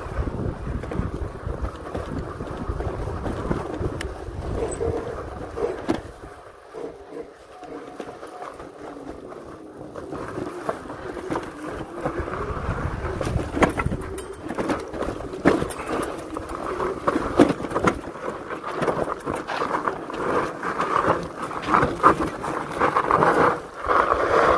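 Philodo two-wheel-drive fat-tire e-bike ridden over rough desert ground. At first wind rumbles on the microphone. Over the second half the tyres crunch over gravel and rocks and the bike rattles with many sharp clicks, under a faint whine that rises and falls in pitch.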